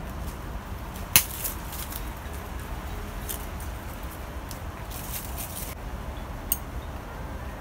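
Bonsai pruning scissors snipping twigs on a beech bonsai. One sharp snip comes about a second in and a softer one near the end, with a few faint clicks and leaf rustles in between.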